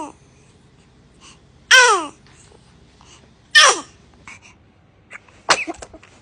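A baby sneezing three times, each sneeze short and sudden with a falling pitch, coming about two seconds apart.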